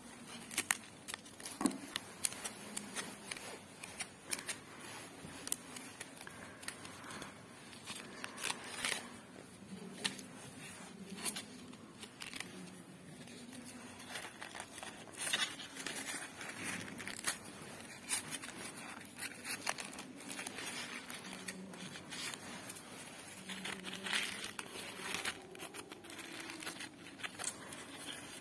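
Paper crinkling and rustling as paper petals are handled and pressed around a paper tulip, with scattered small crackles.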